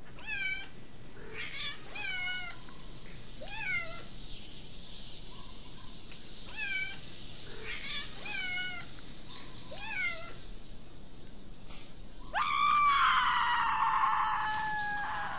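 Night ambience sound effect: a steady high hiss with short pitched animal calls every second or so. About twelve seconds in comes a loud, drawn-out call that rises sharply and then slowly falls; it is the loudest sound.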